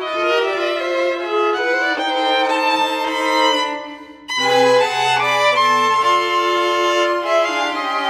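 Background music led by bowed strings, with long held notes that shift in pitch every second or so. It breaks off briefly about four seconds in, then comes back in with a lower note underneath.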